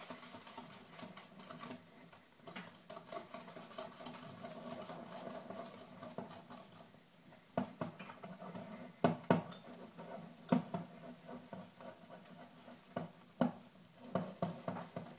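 Wire balloon whisk stirring flour into waffle batter in a bowl: a steady scratchy swishing for the first half, then a run of sharp knocks as the whisk strikes the bowl.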